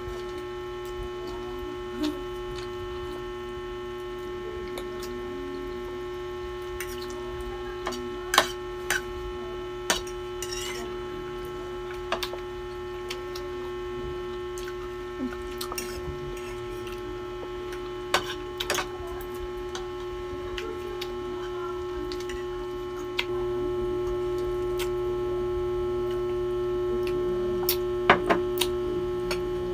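Forks clinking and scraping against plates and a serving platter during a noodle meal, sharp clicks scattered through, over a steady electrical hum that gets slightly louder about three-quarters of the way through.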